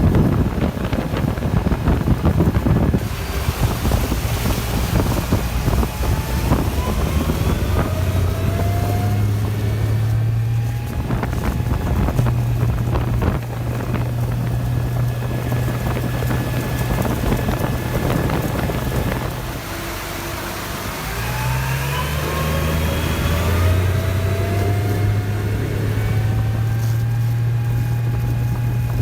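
Motorboat under power on the water, with heavy wind noise on the microphone over a steady low hum. A thin whine rises in pitch twice, about a third of the way in and again later, as the boat speeds up.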